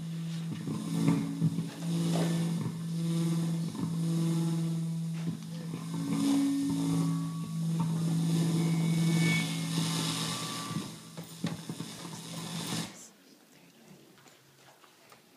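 Instrumental music between scenes: a held low note with changing melody notes above it, cutting off abruptly about 13 seconds in.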